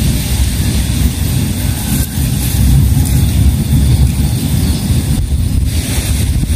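Wind buffeting the microphone: a loud, constant low rumble with a fainter hiss over it.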